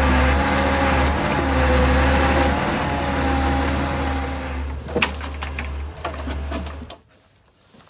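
Car engine running, heard from inside the cabin as a steady low drone with a few held tones above it, and a few sharp clicks about five seconds in; it cuts to faint sound near the end.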